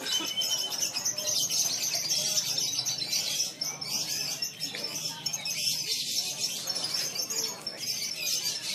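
A dense chorus of many caged competition songbirds singing at once, with rapid high-pitched chirps and trills overlapping throughout.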